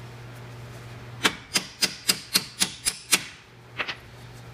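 Hammer tapping on the steel strut mounting bolts at the steering knuckle to free the strut: a quick run of about eight sharp metallic taps starting about a second in, roughly four a second, then two lighter taps.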